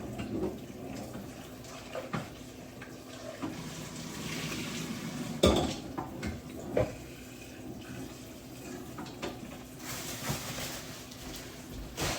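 Metal pots and pans knocking and clanking as cookware is handled, the loudest clank about five and a half seconds in, with a kitchen tap running in short spells.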